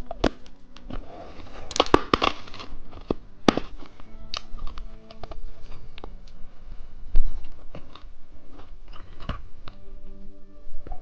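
Close-miked crunching and chewing of candy, in bursts of sharp crunches with a dense cluster about two seconds in and a heavier knock around the middle. Soft background music plays underneath.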